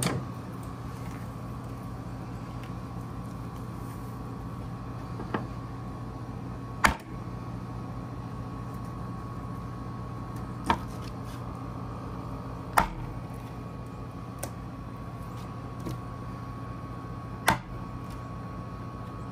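Steady mechanical hum from a running machine such as a fan, with a handful of short, sharp knocks several seconds apart as a knife cuts through a skinned squirrel's joints and strikes the work table.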